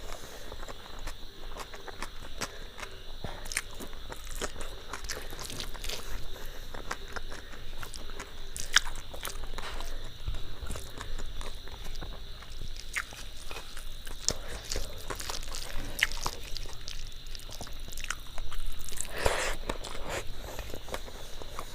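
Close-mic eating sounds: a person chewing food with many small wet mouth clicks and smacks. A louder, longer noise comes about a second before the end.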